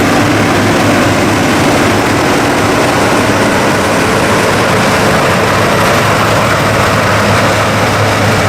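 New Holland CR 7.80 combine harvester running, a loud even machinery rush with a constant low hum.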